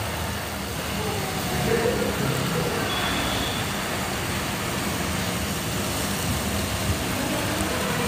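Steady hiss of meat slices sizzling on a hot ridged grill plate over a portable gas stove, with faint voices in the background.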